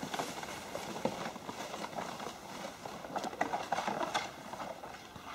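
Homemade ski-bike's ski scraping and crunching over packed snow, with uneven boot crunches as the rider pushes off. The sound fades steadily as the bike slides away.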